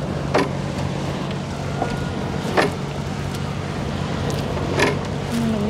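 Boat engine running steadily with a low drone, with three sharp knocks about two seconds apart.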